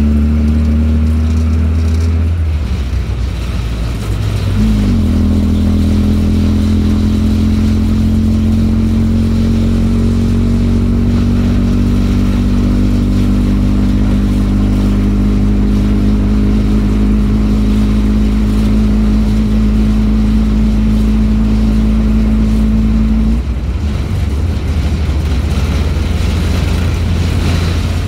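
A 1942 Autocar M16A1 half-track's White six-cylinder gasoline engine pulling the vehicle along, heard from inside the cab. The engine note dips a couple of seconds in and comes back up about two seconds later. It then holds a steady pitch for most of the stretch before falling away about five seconds before the end.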